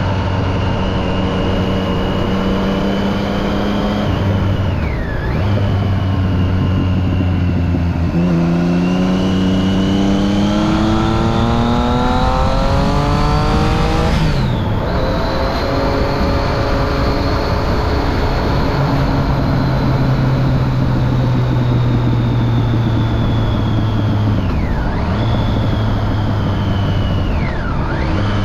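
Triumph Street Triple 675's inline three-cylinder engine, fitted with a Remus Hypercone exhaust and dB killer, under way. It runs at steady revs, rises in pitch under acceleration from about eight seconds in until a shift near halfway, then holds steady again, with short dips in pitch at gear changes.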